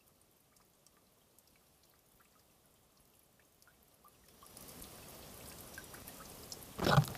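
Fuel draining from a tractor's fuel filter onto dirt during filter cleaning: sparse faint drips at first, then a steady trickle from about four seconds in. A single loud thump near the end.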